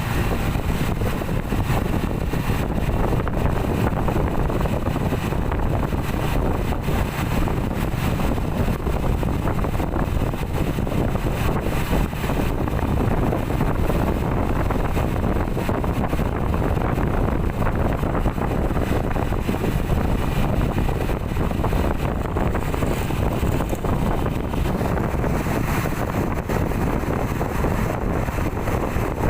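Steady street-traffic and engine noise heard from a moving vehicle, with wind rumbling on the microphone. No horn sounds.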